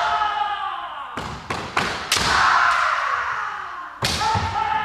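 Kendo sparring: sharp cracks of bamboo shinai strikes and thuds of stamping feet on a wooden floor, about five in quick succession, with long drawn-out kiai shouts between them, echoing in a large hall.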